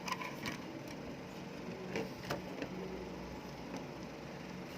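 A few faint clicks and taps from small parts and wires being handled, over a steady low hum.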